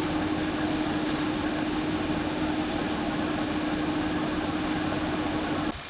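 A machine running steadily with a constant hum, which cuts off abruptly near the end.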